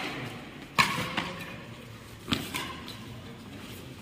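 Badminton rally: rackets striking a shuttlecock, three sharp hits, one at the start, one about a second in and one past halfway. Each hit is followed by a fainter knock a moment later.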